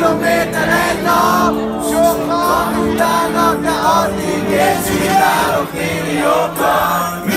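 Loud hip-hop music with a male singing vocal whose pitch bends and glides over a steady bass line, played through a PA at a live show, with some crowd noise.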